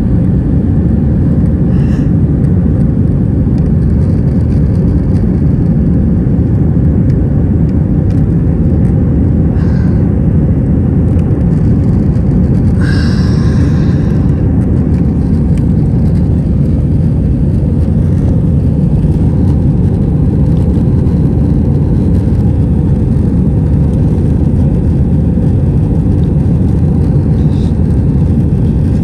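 Steady low rumble of an Airbus A320 heard inside the cabin, engines and airflow running without change. A short higher-pitched sound cuts through once, about thirteen seconds in.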